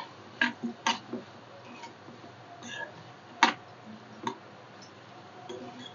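Metal spoon knocking and scraping against a frying pan while stirring the tomato-onion chutney: a few irregular sharp clicks, the loudest about three and a half seconds in.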